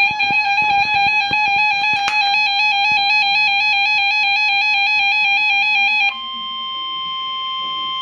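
NOAA Public Alert weather radio sounding its electronic warning alarm: a fast, warbling pattern of beeps for about six seconds, then an abrupt switch to a single steady tone, the 1050 Hz weather radio warning alert tone that comes before a warning broadcast. Handling knocks on the radio in the first two seconds.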